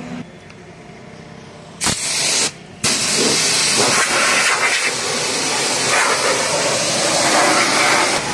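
Pressure washer spraying with a loud, steady hiss: a short burst about two seconds in, a brief stop, then continuous spraying until near the end.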